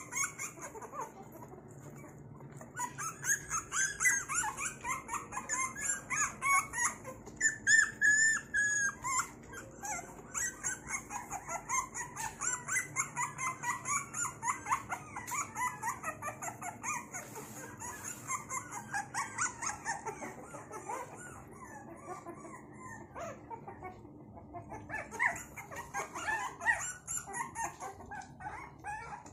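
A litter of young puppies whining and yelping, many short high-pitched cries overlapping several times a second, easing off for a couple of seconds about three-quarters of the way through.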